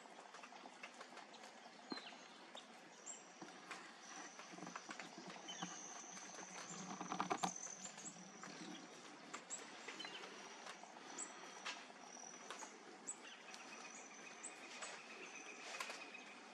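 Hummingbirds feeding at flowers: faint high thin trills and short chirps come and go. About seven seconds in there is a louder low buzzing hum, the loudest moment.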